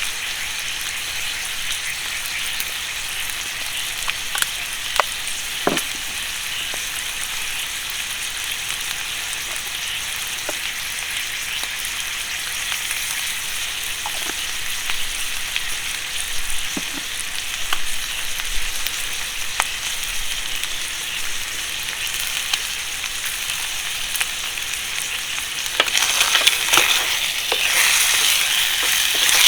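Food frying in a pan, a steady sizzle with scattered sharp pops, growing louder about 26 seconds in.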